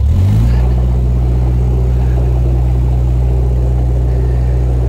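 Narrowboat's diesel engine revving up in the first half second, then running steadily at raised revs, held in reverse so the boat is not dragged forward into the lock gates by the inflow from the paddles.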